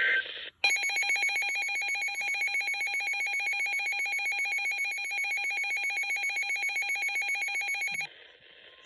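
Emergency Alert System attention tone on NOAA Weather Radio: a loud, rapidly pulsing electronic alarm tone that lasts about seven and a half seconds and then cuts off sharply. It starts just after the last squawk of the digital data header, and it signals that a special marine warning is about to be read.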